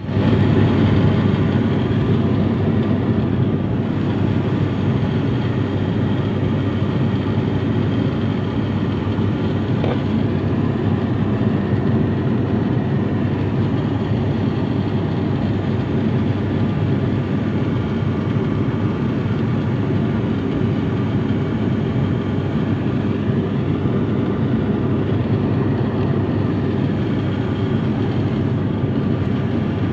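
Aeroplane cabin noise in flight: the engines and rushing air make a loud, steady drone that does not change.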